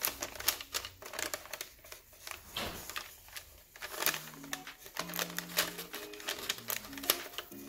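Crinkling and clicking handling noises, with soft background music of held low notes coming in about four seconds in.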